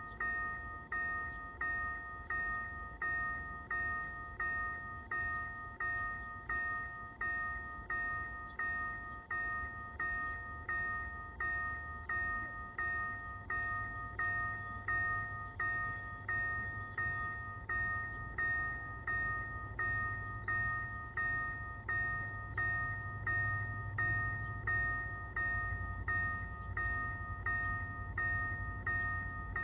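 Level-crossing warning bell ringing in a steady, even ding-ding rhythm, a little faster than once a second, as it signals that a train is approaching. A low rumble builds from about halfway through.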